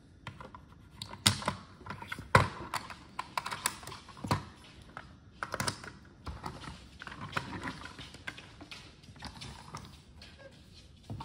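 Irregular clicks and light knocks of small plastic parts being pressed back onto toy cars and the cars being set down on a table; the sharpest clicks come about a second in and again about two and a half seconds in.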